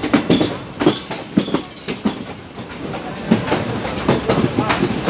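Two Indian Railways trains crossing on adjacent tracks: the wheels of the passing coaches clatter over the rail joints under a steady rumble, with sharp clacks coming irregularly, about two a second.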